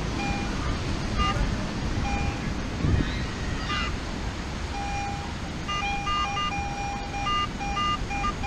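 Metal detector sounding short beeps of several different pitches, a few scattered ones at first and then a quick string of them from about five seconds in, signalling metal under the sweeping coil. A steady rush of wind and surf runs underneath.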